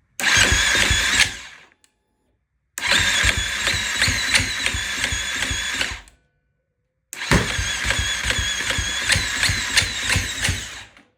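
2016 KTM 350 SX-F single-cylinder four-stroke turned over on its electric starter in three attempts (a short one, then two of about three to four seconds), chugging evenly without catching. It is a crank-no-start that sounded like a valve or low-compression problem but was caused by a worn torque limiter gear.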